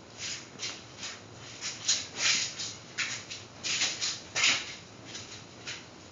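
Pan handling while oil goes into a pan set to heat: about a dozen short, irregular scraping or swishing strokes, roughly two a second.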